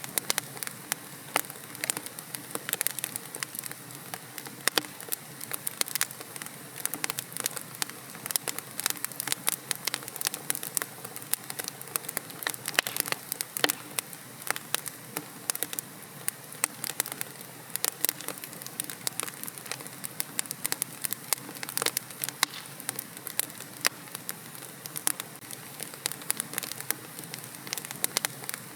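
Wood fire burning in a fireplace, with many sharp, irregular crackles and pops over a soft steady hiss.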